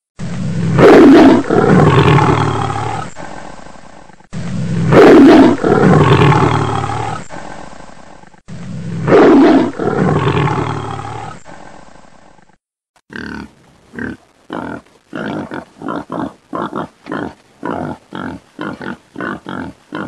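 Lion roaring: three long, loud roars, each fading out over about four seconds, then a run of short grunting calls, about two to three a second.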